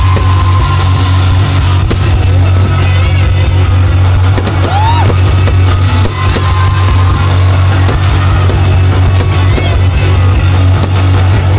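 Aerial fireworks bursting and crackling, with one shell's whistle rising and falling about five seconds in, over loud music with a heavy bass.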